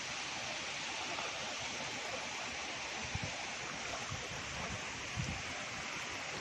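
Steady rush of flowing river water, with a few short low thuds about three and five seconds in.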